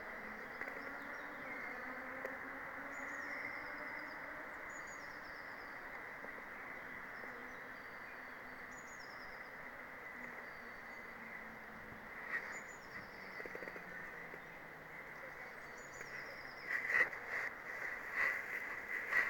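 A small songbird repeating a short, high song phrase every few seconds over a steady background hiss. A few knocks come in near the end.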